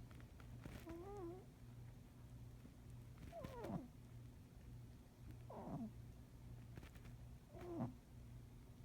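An old cat snoring in its sleep, each breath coming out as a squeaky whistle that mostly falls in pitch, four times about two seconds apart, over a faint low rumble.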